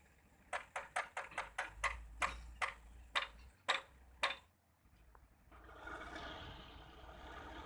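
A quick series of about a dozen sharp knocks over some four seconds, unevenly spaced. A steady noisy rumble starts about five and a half seconds in.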